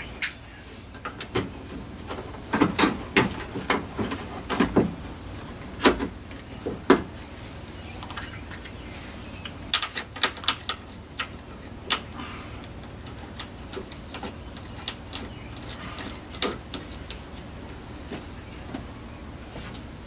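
Clicks and knocks of hard plastic and metal parts inside a 2016 Toyota Camry's door, its trim panel off, as the door handle mechanism is handled and fitted. They come in a quick cluster about two to five seconds in, another around ten to twelve seconds, and then only now and then.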